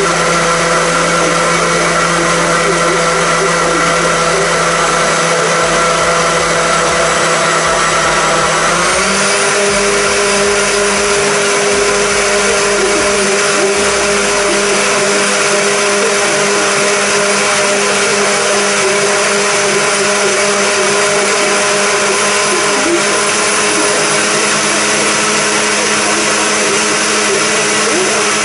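Ninja HB150UK heated blender's motor running steadily as it blends hot butternut squash soup on its smooth-soup program. The motor's pitch shifts about nine seconds in, then holds steady.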